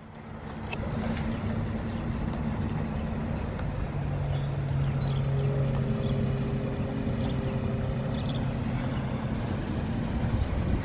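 Pickup truck engine running at low speed while towing a boat trailer on a launch ramp. It is a steady low hum.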